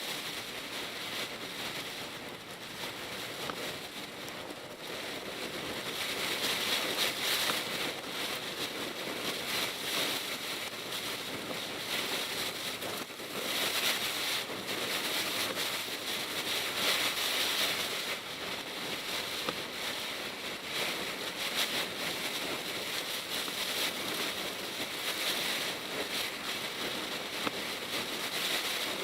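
Typhoon rain and gusting wind on a moving Mitsubishi Pajero Mini, with tyres hissing on the wet road. The noise swells about six seconds in, then rises and falls with the gusts and spray.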